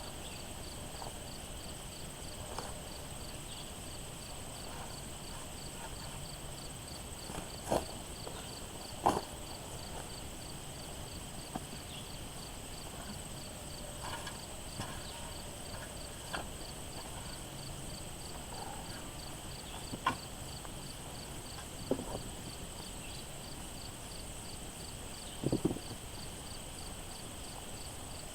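Insects (crickets or katydids) trilling steadily with a high pulsing chirp. Now and then come short knocks and thuds from digging potatoes out of the garden soil, the loudest about nine seconds in and a double one near the end.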